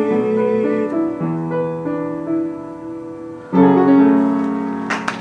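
Piano playing the closing bars of a song: held chords fading away, then a final louder chord struck about three and a half seconds in and left to ring. Applause breaks out right at the end.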